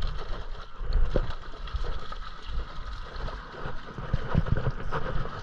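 Wind buffeting the camera microphone in a low, gusty rumble, with a hooked salmon splashing and thrashing at the water's surface.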